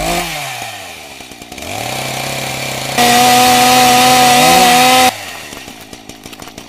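Chainsaw sound effect: a loud, steady high-revving chainsaw about three seconds in that cuts off abruptly after about two seconds. Before it, a motor whine falls in pitch and then a lower motor hum builds.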